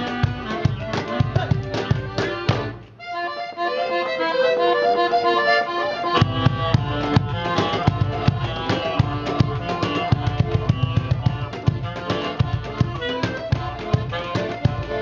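Live band playing instrumental music with a steady drum beat. About three seconds in the drums stop and a single melodic instrument carries on alone, then the full band with drums comes back about six seconds in.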